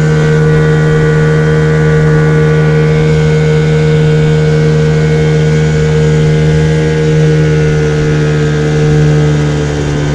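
An engine running steadily at a constant speed, with a strong even hum that swells slightly near the end.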